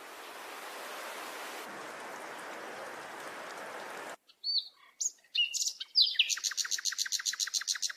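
Steady hiss of rain that fades in and cuts off abruptly a little over four seconds in, followed by a small bird chirping and then a fast, high trill of about seven notes a second.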